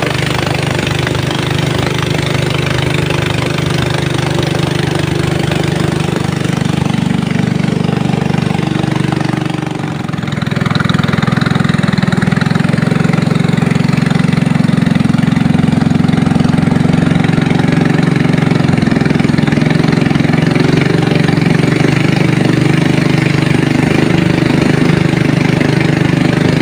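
Small boat's engine running steadily under way. It dips briefly about ten seconds in, then runs a little louder.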